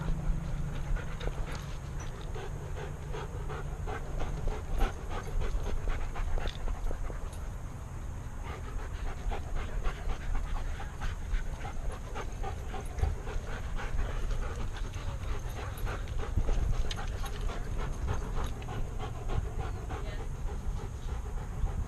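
A dog panting close to the microphone. Under it runs a low rumble, with many small quick knocks from the camera mount jostling as the dog moves.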